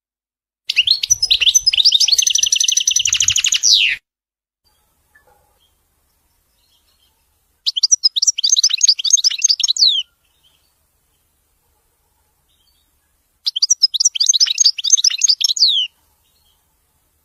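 European goldfinch singing: three phrases of rapid, high twittering notes, each two to three seconds long, with silent gaps between them. The first phrase ends in a fast, even trill.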